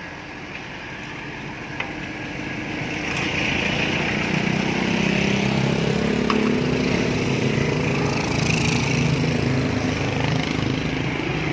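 Road traffic: a vehicle engine grows louder about three seconds in, then holds a steady low drone.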